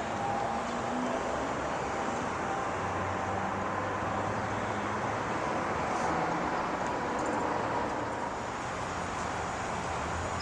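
Rheem 3-ton package heat pump running steadily: outdoor fan and scroll compressor giving an even whir with a low hum.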